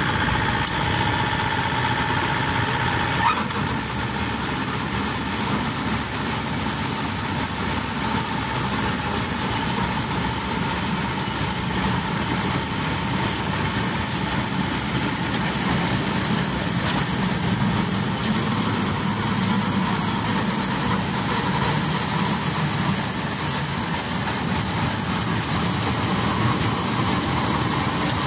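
Tanikaya Megatron HT-88 rice combine harvester's engine running steadily as the tracked machine drives into the paddy. A steady whine for the first three seconds cuts off with a click.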